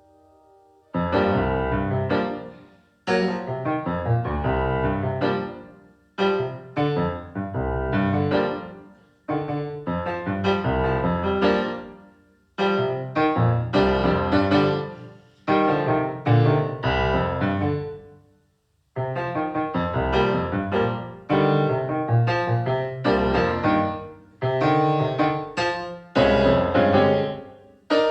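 Piano music: full chords struck one after another every two to three seconds, each left to ring and die away, with a brief pause a little past the middle.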